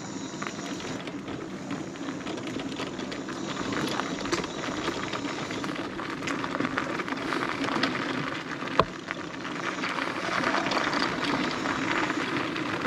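Wheels rolling over crumbling, gritty asphalt: a continuous crackle of grit under the tyres, with one sharp click about nine seconds in.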